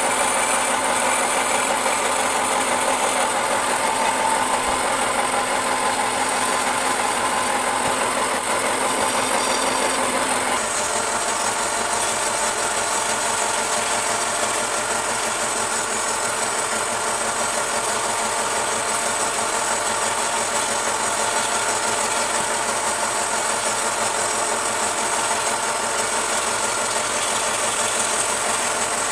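Belt-driven wood lathe and its electric motor running, while a hand-held turning chisel cuts the spinning wooden vase and throws off shavings: a steady, dense scraping noise over the machine's running. The sound shifts abruptly about ten seconds in.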